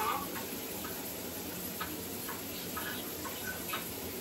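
Light, irregular small clicks and rubbing, several a second, over a steady hiss: hands working dead skin off the underside of a foot.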